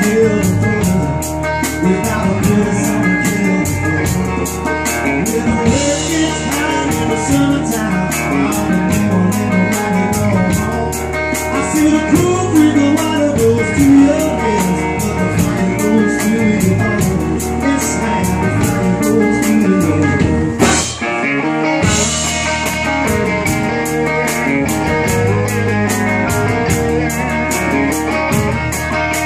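Live blues-rock band playing: an amplified resonator guitar over a drum kit keeping a steady beat. The band stops short for a moment about two-thirds of the way through, then carries on.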